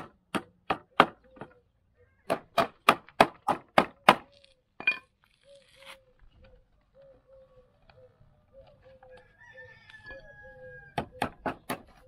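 Hammer driving nails through wire mesh into a wooden board, in quick runs of sharp blows: about five at the start, about seven more a couple of seconds in, and another run near the end. In the pause between, a bird gives short repeated calls.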